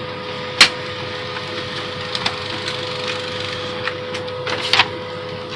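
Canon LBP-2900 laser printer running through a print: its gear train and rollers make a steady mechanical whir with a faint steady tone. There is a sharp click about half a second in and a couple of smaller clicks near the end.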